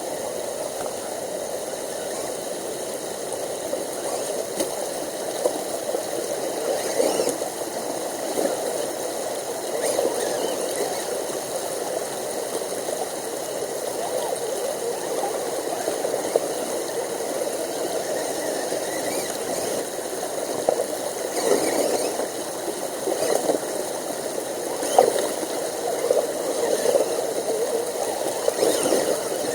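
A brook running steadily, with scattered short clicks and knocks now and then.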